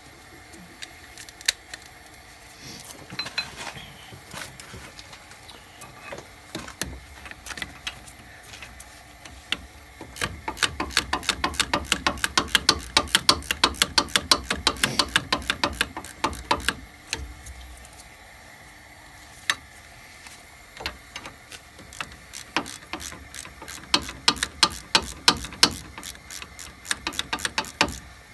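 Hand socket ratchet clicking in quick runs as a loosened brake caliper bolt is turned out: scattered clinks of tools at first, a long steady run of rapid clicks about a third of the way in, a pause, then another run near the end.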